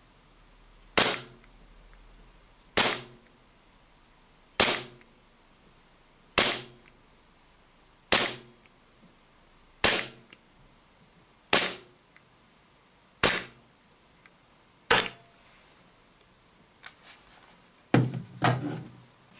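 EMG Salient Arms BLU Glock 17 gas blowback airsoft pistol firing single shots through a chronograph, nine sharp cracks about two seconds apart, each with the slide's clack. The magazine was not gassed properly, so the gas is running low and velocity is falling. Near the end come a few fainter clicks and a quick cluster of knocks.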